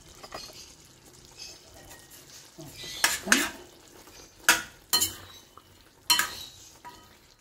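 Metal spatula stirring chicken curry in a stainless-steel kadai. About three seconds in it starts scraping, with about five sharp clanks against the side of the pan.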